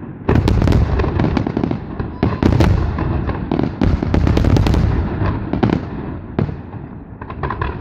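Aerial fireworks display: a dense run of shell bursts booming and crackling, with rumbling echoes between the bangs and a quick cluster of cracks near the end.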